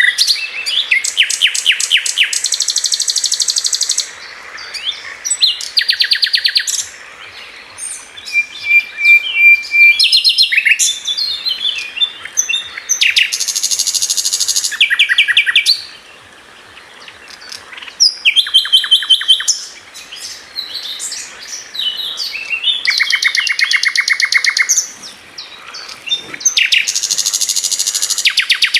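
Songbird singing: fast, high trilled phrases of one to three seconds each, repeated after short pauses, one of them a brief steady whistled note.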